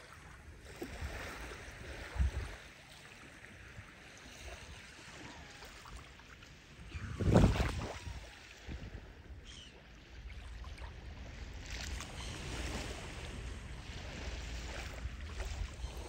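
Small waves of the calm Baltic Sea lapping softly at a sandy shore, with wind rumbling on the microphone. A louder rush comes about seven seconds in.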